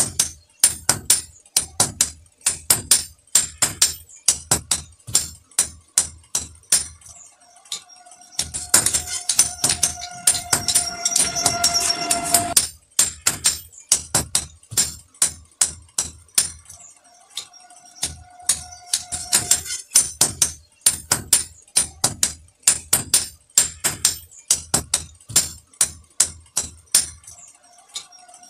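Hammers striking a red-hot axe head on an anvil in a fast, steady run of sharp metallic blows, about three a second, as the head is forged to shape.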